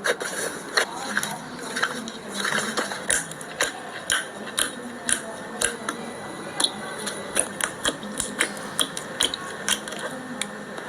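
Slime being squeezed and poked by hand, making irregular sharp clicks and pops, several a second.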